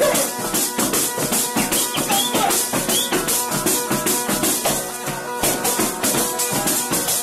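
Calabrian zampogna bagpipe playing a tarantella over its steady drones, with a tamburello frame drum keeping a fast, even jingling beat.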